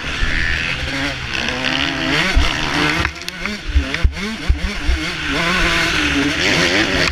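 Motocross bike engine ridden hard, its pitch climbing and dropping again and again with throttle and gear changes, heard from the rider's own helmet camera. A few low thumps come in the middle.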